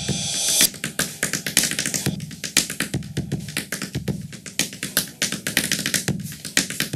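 Calabash drum, a large gourd, struck by hand in a fast, even rhythm, with deep bass tones under sharp slaps. A short bright swell sounds at the very start.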